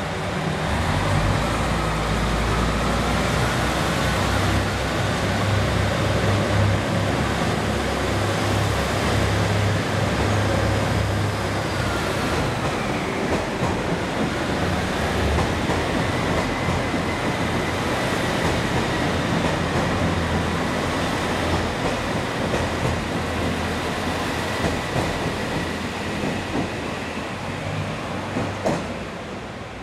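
JR Hokkaido KiHa 283 series diesel tilting express train pulling away and rolling past at low speed: diesel engines running with a low rumble, with wheel and rail noise and a thin whine on top. The sound fades over the last few seconds as the rear car passes.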